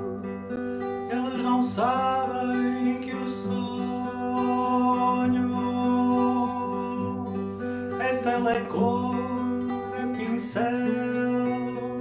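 Background music led by acoustic guitar.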